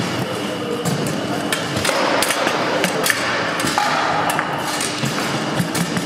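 Table football game in play: the hard ball cracking against the players' figures and the table walls, with rods knocking, in quick irregular clacks over a steady background hum.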